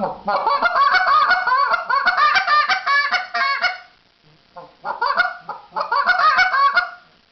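Goose call blown by a caller in the hiccup note: rapid runs of short honks, each a moan and a cluck rolled together as two quick notes, one long run, a brief gap with a few single notes, then a shorter run. The hiccup imitates excited geese.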